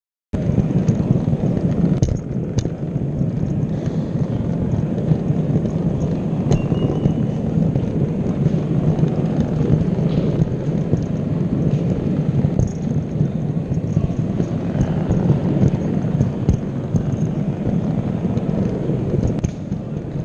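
Gauge O model locomotive running along its track, heard through a camera mounted on its bufferbeam: a steady rumble of wheels and motor, with occasional sharp clicks.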